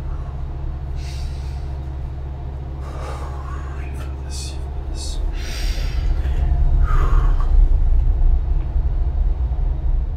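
A man's heavy breaths and gasps, about five in all, over a steady deep rumble that swells louder about five seconds in.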